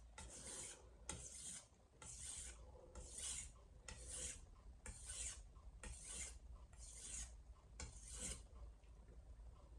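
A VG10 stainless steel santoku blade stroked back and forth on a Shapton Glass whetstone: a quiet, rasping scrape about once a second, nine strokes in a steady rhythm.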